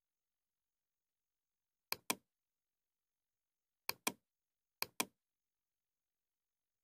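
Computer mouse clicked three times, about 2, 4 and 5 seconds in. Each click is a quick pair of sharp ticks, press and release, with dead silence between.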